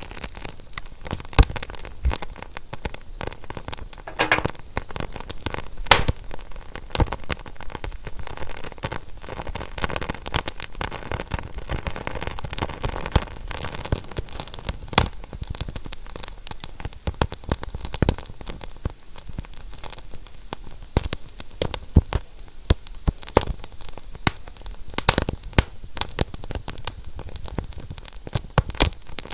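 Wood fire crackling, with dense irregular pops and snaps over a soft steady hiss. A brief thin whistle sounds about four seconds in.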